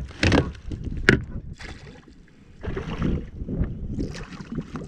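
Splashing and knocking at the side of a kayak while a hooked largemouth bass is played close to the boat. It comes as a few sharp splashes and bumps in the first second or so, then a rougher stretch of water noise.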